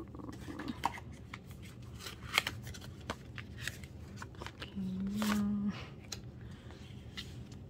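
Photocards and album packaging being handled and shuffled: scattered light clicks, taps and rustles. A brief closed-mouth hum from a person about five seconds in.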